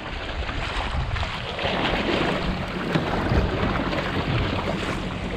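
Water rushing and splashing along the hull of a Wayfarer sailing dinghy moving through choppy water, with wind buffeting the microphone. The rush of water grows louder about two seconds in.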